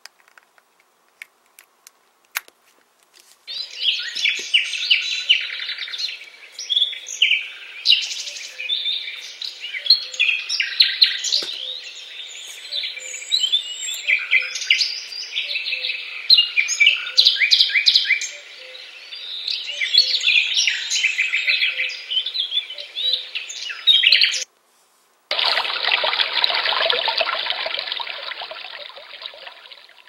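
Recorded forest birdsong played through the speaker of an ANFURIG HFD-600 white noise machine: many birds chirping and singing. About 25 seconds in it stops and gives way to a steady sound of flowing brook water. A few small clicks at the start as the USB cable is handled.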